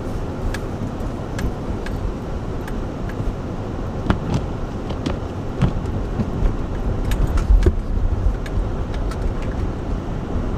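Four-wheel-drive car creeping slowly over snow: a steady low rumble with many scattered small clicks and rattles.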